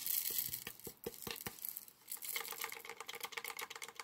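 Diamond-painting drills rattling and clicking in a plastic sorting tray as it is shaken, a dense run of small clicks that thickens in the second half.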